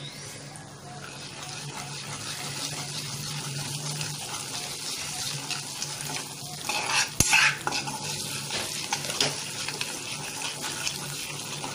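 Hot oil sizzling in a kadhai as Kashmiri red chilli powder fries in it with turmeric and asafoetida. In the second half a ladle stirs and scrapes it around the pan, with a sharp knock against the pan a little after seven seconds.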